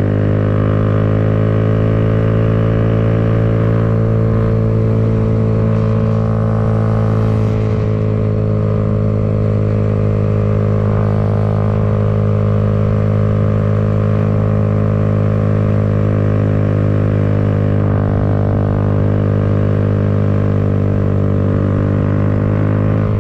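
Kawasaki Z125's small single-cylinder four-stroke engine running at a steady engine speed while cruising, its pitch almost unchanged throughout.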